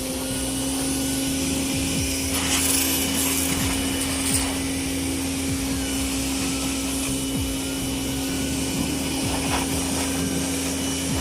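Small pressure washer running steadily with a constant hum, its water jet hissing, the spray growing louder for about a second a couple of seconds in.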